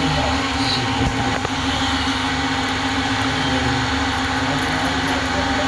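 Pearl-drilling machine running: the steady hum of its small electric motor with a constant hiss and a few faint clicks.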